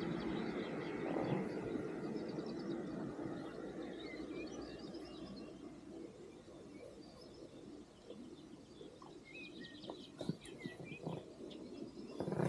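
Small birds chirping and calling repeatedly, over a noisy haze that fades during the first few seconds. A few short knocks come near the end.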